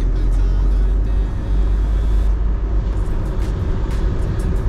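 Motorhome on the road: a steady low engine and road rumble with a hiss over it and a few light rattles.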